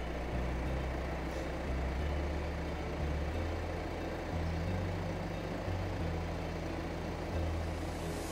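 Car's turbocharged engine idling with a steady low hum, left running after towing so the oil and turbo can cool down.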